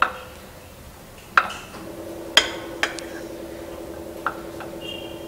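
A spoon clinking lightly against a serving dish a few times as curd is spooned over the vadas. A faint steady hum comes in about two seconds in.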